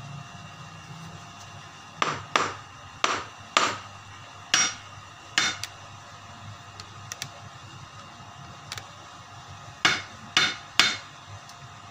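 Hammer blows, most likely on a nail being driven into the wooden sword handle to punch a hole instead of drilling one. There is an uneven run of about six sharp strikes, then a pause, then three more near the end, each with a short metallic ring.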